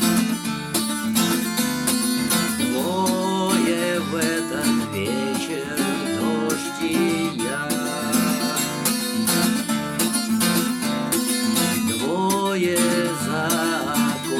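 Acoustic guitar strumming in a steady rhythm, playing the song's instrumental ending after the last sung line, with a melody line gliding over it.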